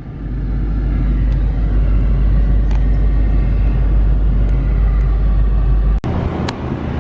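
Car running at low speed, a steady low engine and road rumble heard from inside the car. About six seconds in the sound breaks off abruptly and changes, the deep rumble dropping away.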